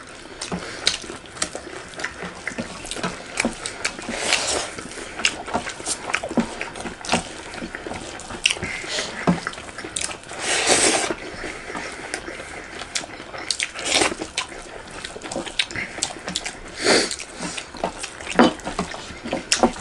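Close-miked mukbang eating sounds: wet chewing, lip smacking and fingers squelching through rice and curry, heard as a string of small clicks and pops. A longer rush of noise comes about ten seconds in, as a big handful of rice goes into the mouth.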